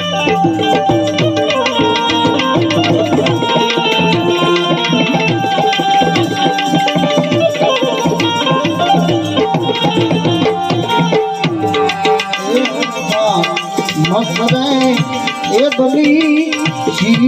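Indian devotional music: tabla drumming with a melodic instrument carrying a gliding tune, without singing.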